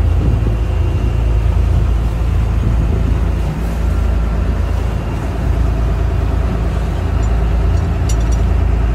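A fishing boat's engine running steadily under way, a heavy low rumble, with a few light clicks about eight seconds in.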